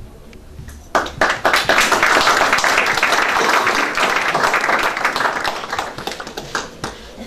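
Audience applauding. The clapping starts abruptly about a second in and dies away near the end.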